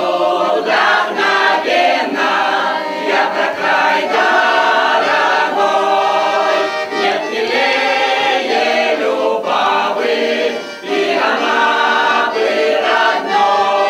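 Mixed choir of men's and women's voices singing a Russian folk song, accompanied by a button accordion, with a short break between phrases about eleven seconds in.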